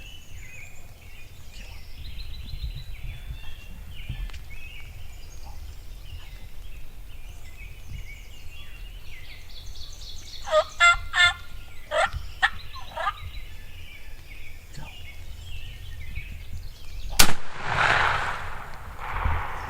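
Wild turkey gobbler gobbling loudly a little past halfway, amid songbird chatter. Near the end comes a single sharp shotgun blast, the loudest sound here, followed by a rush of noise.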